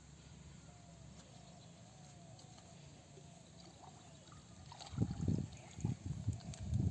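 Shallow pond water sloshing and splashing in irregular bursts as a small plastic mug is dipped and scooped through it, starting about five seconds in. Before that, only faint outdoor background with a few faint short chirps.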